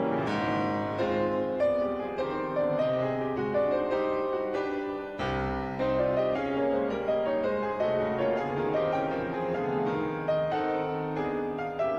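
Background music: a piano playing a continuous stream of notes over lower held notes.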